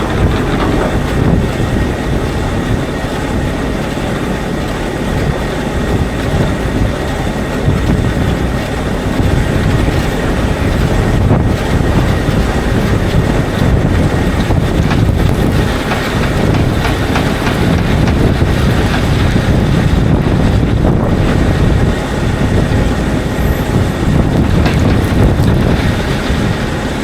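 A vehicle running and moving, a steady loud rumble with many small knocks and rattles, and wind on the microphone.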